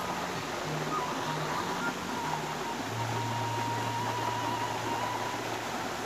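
Soft background music, a held high tone over short stepping bass notes and then one long low note, laid over a steady rushing hiss.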